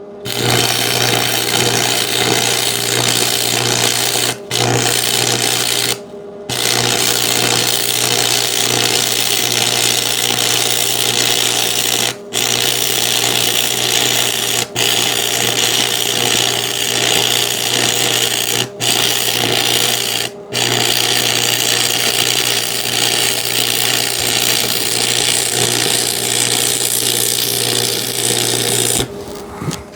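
Arc welding on 1-inch square steel tubing: a loud, steady hiss with a low buzz, broken by about six brief stops and ending about a second before the end.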